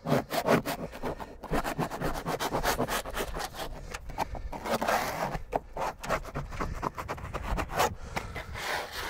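Small plastic spreader scraping and rubbing over a Duradek vinyl deck membrane in many quick, short strokes, smoothing the glued sheet onto the wall to push out air pockets and wrinkles.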